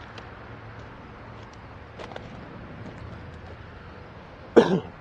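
A single short, loud cough close to the microphone near the end, over a faint steady low hum.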